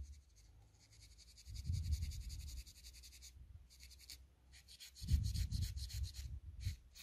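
Polishing pad scrubbed over a delidded CPU's bare die in rapid short back-and-forth strokes, rubbing off leftover solder. The strokes pause briefly about three and a half seconds in, then resume, with dull bumps from the fingers handling the chip.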